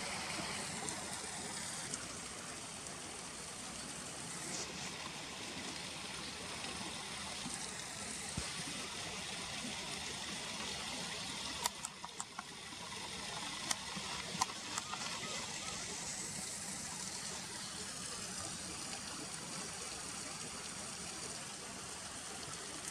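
Steady rushing of flowing river water, with a few sharp clicks about halfway through.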